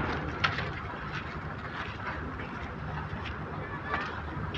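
Harbour ambience: a ship's engine gives a steady low hum, and short high bird calls cut through it twice, about half a second in and again near the end.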